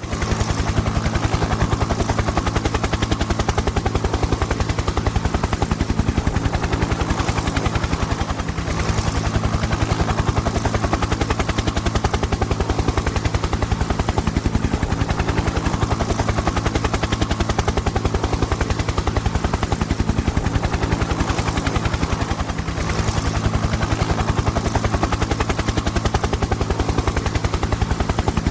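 Helicopter rotor blades chopping rapidly and steadily over a low engine drone. It starts abruptly and dips slightly in level twice.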